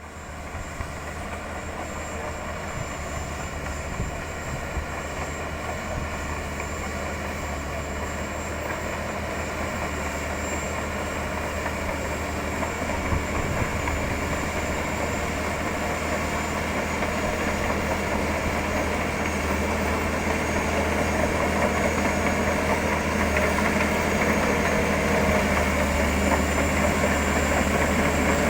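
Shantui bulldozer's diesel engine running steadily, growing gradually louder.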